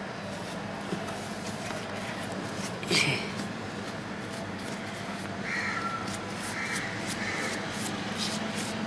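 Steady low hum, with a brief sharp sound about three seconds in and three short calls in the second half.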